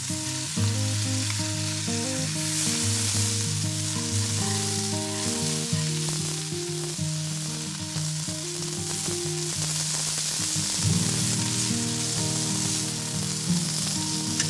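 Chicken thigh pieces sizzling in hot oil in a carbon steel frying pan, with the odd click of tongs as the pieces are placed and turned. Background music with a low bass line plays underneath.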